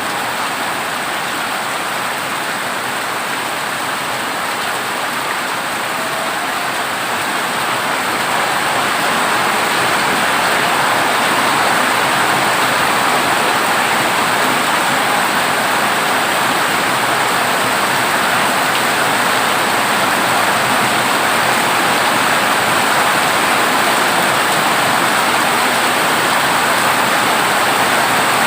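Heavy rain pouring onto a corrugated zinc roof, a dense, steady hiss that grows a little heavier about a third of the way through.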